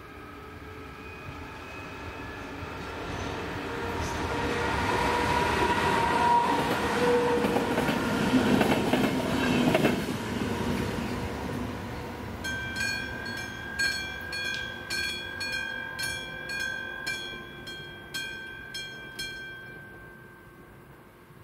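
Passenger train passing over a level crossing, growing louder to a peak about six to ten seconds in and then fading. The crossing's warning bell then rings in regular strokes and stops shortly before the end, as the warning lights go out and the barriers lift.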